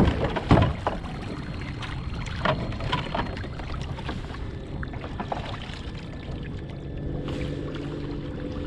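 Pedal-driven fishing kayak under way across choppy water: water washing along the hull with wind on the microphone. Two sharp knocks come in the first second, and a low steady hum joins near the end.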